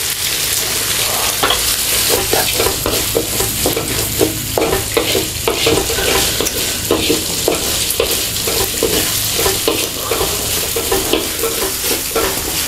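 Oil sizzling in a wok as aromatics and sausage fry until fragrant, with a wooden spatula stirring and scraping against the pan in many short, repeated strokes over the steady hiss.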